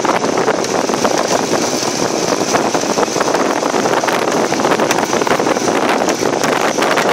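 Wind rushing over a moving microphone: a loud, steady roar with frequent crackling buffets.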